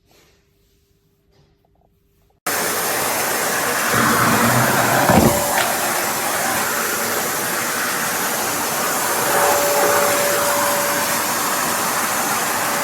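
Kärcher WD 2 Plus wet-and-dry vacuum cleaner (1000 W) switched on about two and a half seconds in, then running with a loud, steady rushing noise. A short knock comes a few seconds after it starts, and a faint whistle sounds for a second or two near the end.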